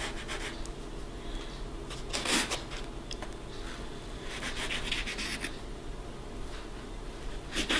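Plastic bench scraper pushed through soft ciabatta dough and dragged across a floured countertop: a faint rubbing scrape, a little louder about two seconds in and again around five seconds.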